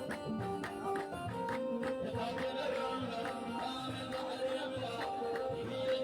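Traditional Beja hoseit music: a melody of held notes over a steady, evenly struck percussion beat.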